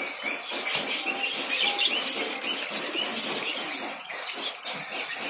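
Sirajee pigeons flapping their wings in a wire cage as a hand reaches in to catch them: a busy flurry of wingbeats and rustling, with short high bird chirps mixed in.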